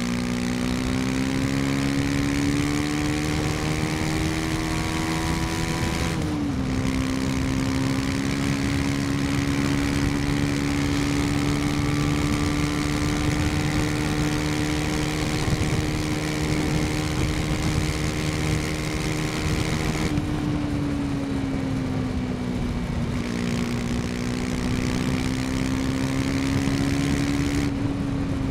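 KTM 250 Duke's single-cylinder engine pulling under way: the engine pitch climbs for about six seconds, drops sharply at an upshift, then holds steady at cruising speed. Around two-thirds of the way through it eases off a little and settles again. A steady rush of noise runs underneath.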